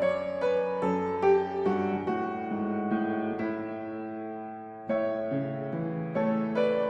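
Background piano music: a gentle melody of single notes over chords, one held chord fading away and then the playing picking up again about five seconds in.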